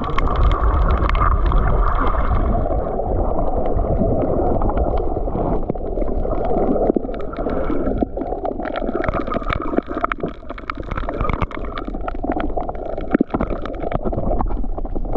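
Muffled underwater water noise picked up by a camera held just below the surface: continuous sloshing and gurgling, mostly low and dull, with scattered sharp clicks and crackles throughout.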